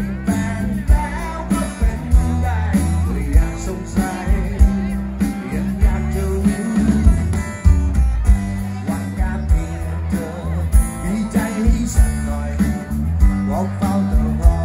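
Live rock band playing through a PA: strummed acoustic guitar, bass, and a drum kit with a steady kick-drum beat, under a singing voice.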